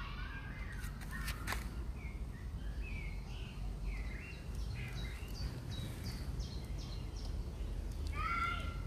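Birds chirping in quick, short notes over a steady low rumble of outdoor background noise, with a louder, harsher bird call near the end.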